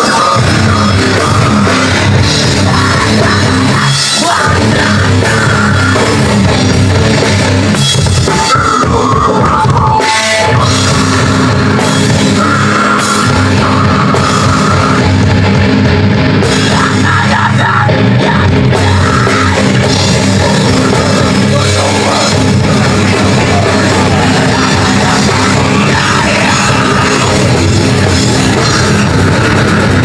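Punk band playing live and loud: electric guitars and a drum kit pounding out a fast, dense rock song, with the sound of the stage PA.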